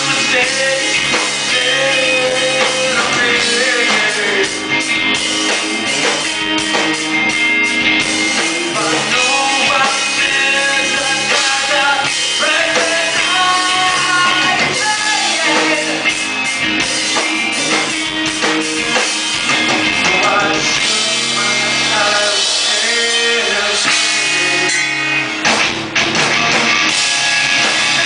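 A rock band playing live: electric guitars and a drum kit, with some singing.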